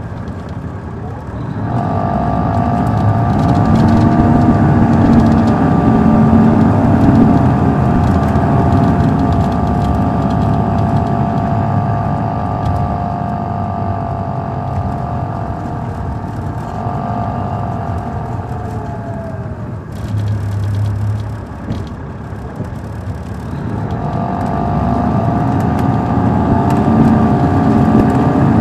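Caterpillar C13 diesel engine of an MCI D4500CL coach, heard from inside the bus, pulling under load with a high whine over its rumble. About two-thirds of the way through, the whine glides down and the engine eases off to a lower note. It then builds again near the end.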